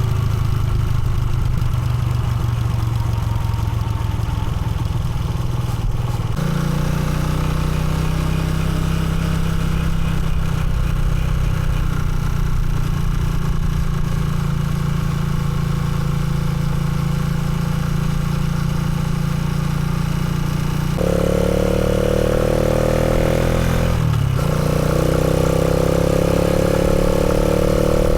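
Motorcycle engine running, its note shifting suddenly about six seconds in and again about twenty-one seconds in, then climbing slowly in pitch with a brief dip around twenty-four seconds.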